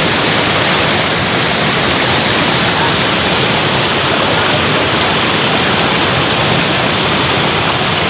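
Waterfall pouring into a river pool, with the current rushing around rocks: a loud, steady rush of water.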